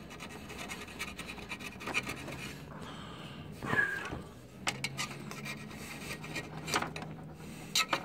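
Hand file scraping in irregular strokes on a scooter's painted metal frame, with a few sharp clicks, rasping the paint off down to bare metal to make a contact point for a ground wire.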